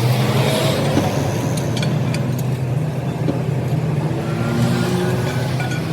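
An engine running steadily, with a low hum and a few faint clicks over it.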